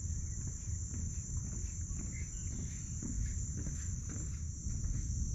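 Steady high-pitched insect chorus, with footsteps crunching on a gravel path and a low rumble of wind on the microphone.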